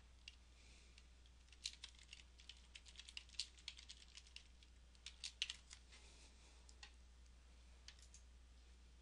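Faint typing on a computer keyboard: a quick, irregular run of keystrokes, then a few scattered taps near the end.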